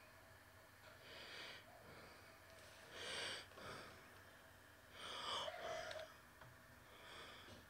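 Faint breathing close to the microphone: soft breaths about every two seconds, with a longer, louder one about five seconds in.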